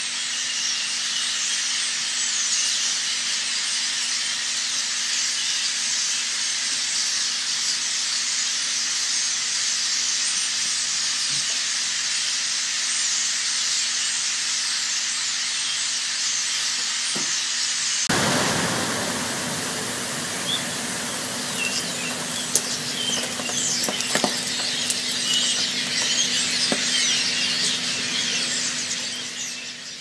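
A huge roosting flock of common starlings chattering and whistling in the trees as one dense, high-pitched din. About eighteen seconds in, the whole flock takes off at once with a sudden explosion of wingbeats. After that, wing noise and calls mix with scattered sharp ticks of their droppings falling.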